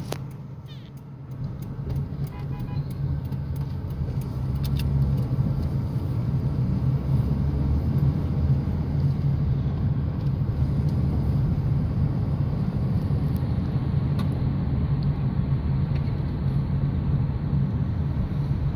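Steady low drone of engine and road noise heard inside the cabin of a moving Daewoo Nexia, growing louder about five seconds in and then holding steady. A few light clicks sound in the first few seconds.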